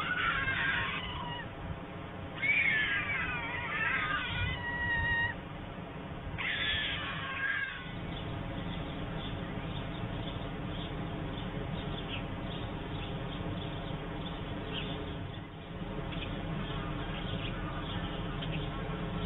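White stork calls, high and sweeping, in three bouts over the first eight seconds. After that, a steady outdoor hiss with faint short high chirps.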